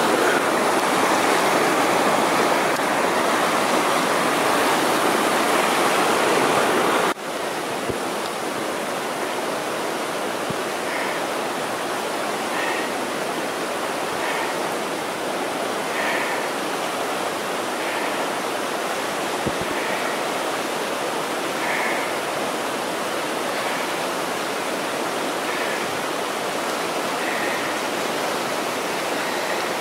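Whitewater rapids rushing in a steady, loud wash of noise, dropping abruptly in level about seven seconds in.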